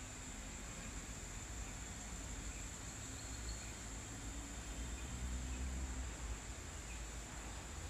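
Insects chirring steadily at one high pitch, over a low outdoor rumble.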